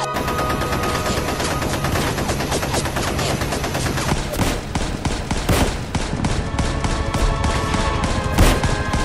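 Battle sound effects of sustained, rapid gunfire: dense machine-gun and rifle fire with no break, with heavier blasts about five and a half seconds in and again near the end.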